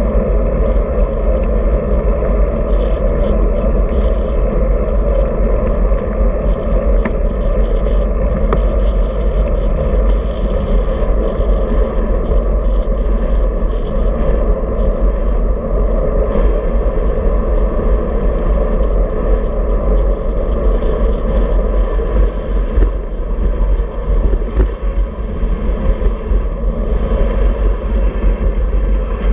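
Steady wind and road noise on a handlebar-mounted camera while riding a road bike on asphalt: a low rumble of wind buffeting the microphone, mixed with the hiss of tyres on the road.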